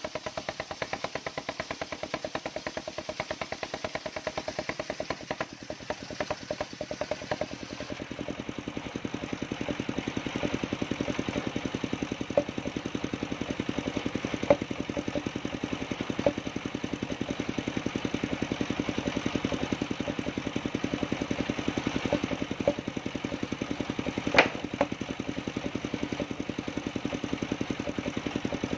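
Engine-driven circular sawmill running with a rapid, steady engine pulse while its blade rips coconut-trunk planks. A few sharp knocks come in the second half, the loudest in the last third.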